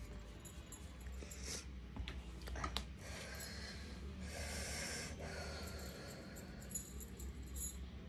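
A person sniffing and breathing noisily through the nose, a runny nose after sneezing powder, with a few faint clicks.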